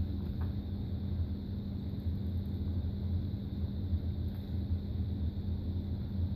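Steady low hum with no change throughout.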